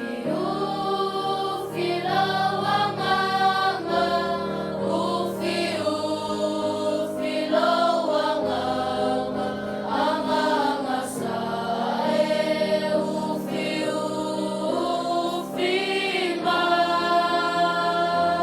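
Group of voices singing a hymn in unison over sustained keyboard chords.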